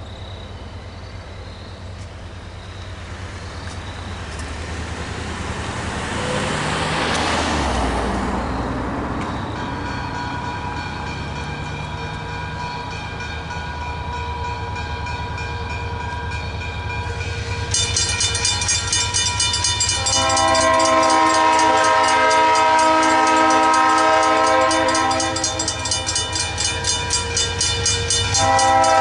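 Railroad grade-crossing warning bells ringing, with a faster, brighter ringing joining about eighteen seconds in. The approaching train sounds its horn in long blasts from about twenty seconds in, after a passing road vehicle swells and fades around seven seconds in.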